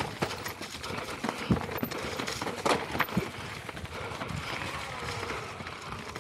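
Mountain bike rolling fast down a rocky, leaf-covered trail: tyres crunching over loose stones and dry leaves, with irregular knocks and rattles as the bike hits rocks.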